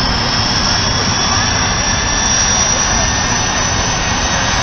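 Jet engine running steadily and loudly while it blasts its exhaust flame at a car: a continuous rush with a thin high whine that rises slightly in pitch.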